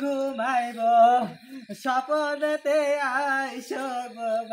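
A voice chanting in a sing-song, mantra-like way, with a brief break about a second and a half in.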